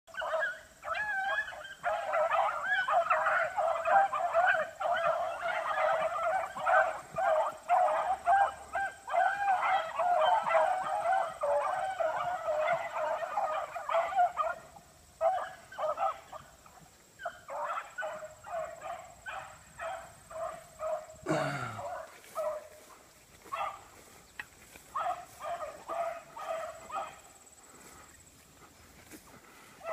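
A pack of beagles in full cry, many hounds baying at once on the line of their quarry during a chase. The cry is dense and continuous for about the first half, then thins to scattered single bays and grows fainter.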